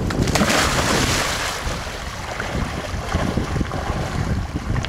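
Wind buffeting the microphone, with water splashing as a black Labrador wades and swims out through shallow water. The splashing is loudest in the first second or so, then lighter.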